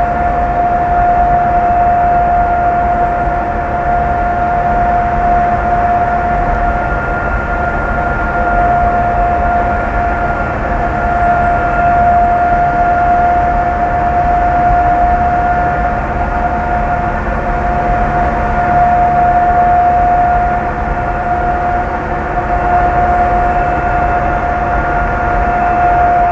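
Peterbilt 389 semi truck's diesel engine running with a high-pitched turbo whistle held at one steady pitch over a low engine rumble.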